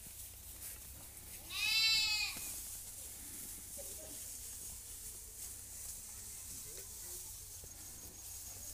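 A goat bleating: one high, drawn-out call about a second and a half in.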